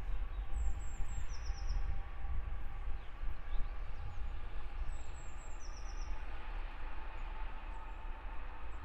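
Distant 'Ludmilla' diesel locomotive approaching, heard as a steady low drone with a faint held whine. A small bird gives short high trills twice, about half a second in and again about five seconds in.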